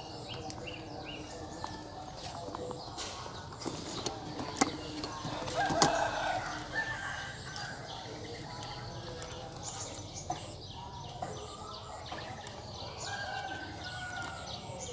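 Farmyard chickens clucking and a rooster crowing, with a louder call about six seconds in, over a background of small birds chirping.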